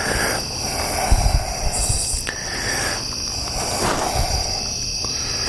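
Crickets chirping in a steady high drone, with rustling handling noise and a few dull knocks, the loudest about a second in.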